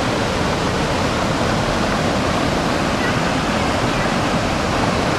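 Mountain river in flash flood: fast, muddy floodwater rushing, a steady, very loud wash of water noise with no let-up.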